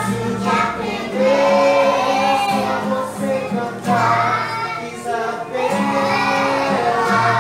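Young children singing a simple song in chorus, accompanied by a strummed acoustic guitar.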